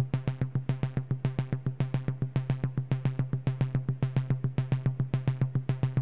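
Background music: an electronic track with a quick, even drum-machine beat over a sustained low synth note.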